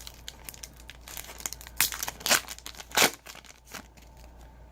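Foil wrapper of a trading-card pack crinkling and tearing as it is ripped open, in a series of sharp crackly bursts, loudest about two to three seconds in.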